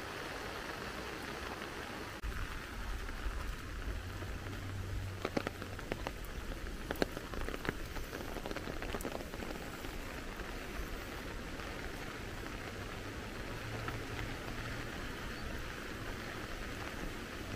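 Steady hiss of water, from rain or from rain-swollen running water. A low rumble comes in about two seconds in, and a few sharp ticks fall between about five and eight seconds.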